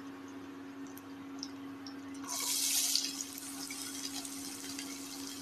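Chopped onion tipped into hot oil with frying cumin seeds, sizzling in a sharp burst about two seconds in, then settling to a fainter steady sizzle. A steady hum from the induction cooktop runs underneath.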